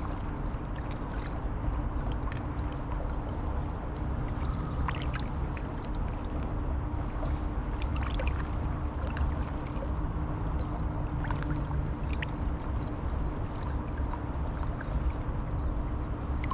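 Riverside ambience by the Waikato River: a steady low rumble with a constant low hum running through it, and scattered faint short ticks and chirps.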